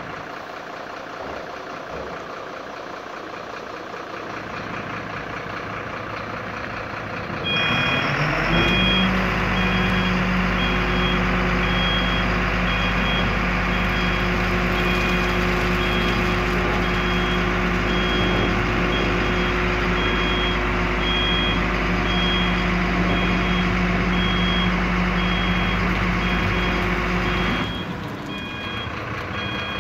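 Mercedes Axor 1829 refuse truck's diesel engine idling, then speeding up about seven seconds in to power the hydraulics that raise the rear-loader compactor tailgate, with a warning beeper sounding repeated high beeps. The revs drop back near the end.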